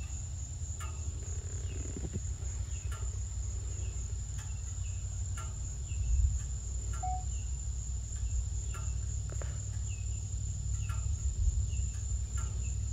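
Steady high insect chorus with short chirps repeating about once a second, over a low steady rumble.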